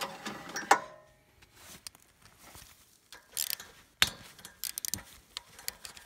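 Light metallic clicks and taps from the exposed rocker arms and push-rod valve train of a small Chinese petrol engine, moved by a gloved hand. One sharp click with a brief ring comes under a second in; after a quiet spell a quick cluster of clicks follows. The engine has no compression, and the owner thinks a valve is stuck.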